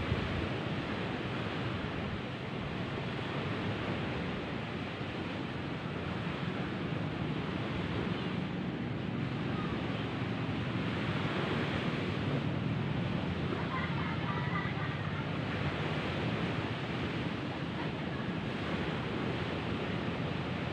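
Steady rushing noise of wind and surf at the shore, with no distinct events.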